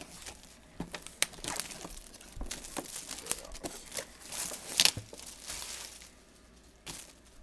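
Plastic shrink wrap being torn and pulled off a cardboard box, crinkling and crackling in irregular sharp bursts, loudest a little over a second in and again near five seconds, then dying down near the end.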